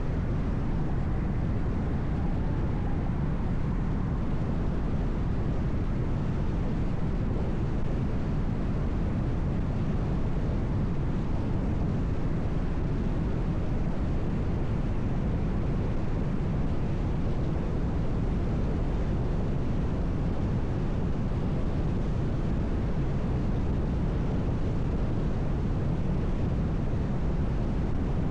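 Car driving at highway speed: a steady low rumble of tyre and road noise with no change in pace.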